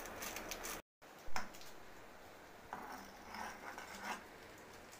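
Crinkling rustle of a small packet being emptied into a cooking pot, then after a brief break a single knock followed by a few light scrapes and clicks in the pot as the noodles are stirred.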